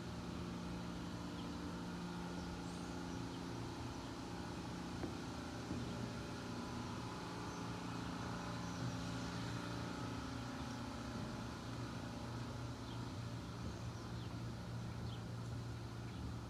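Faint, steady motor-vehicle engine hum whose note changes about ten seconds in, with faint bird chirps over it.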